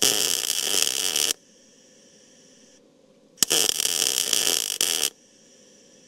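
MIG welder arc crackling while tacking a quarter-inch steel truck frame rail: two bursts of about a second and a half each that start and stop suddenly, with a faint steady hum between them.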